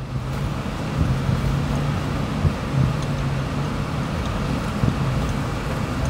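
Steady driving noise: a vehicle's engine humming low and even, with tyre and traffic noise around it.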